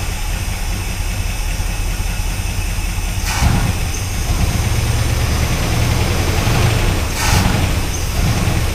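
1974 Dodge pickup's engine idling just after starting on a fresh tune-up of new spark plugs, plug wires, distributor cap and rotor. It runs steadily and is briefly louder twice.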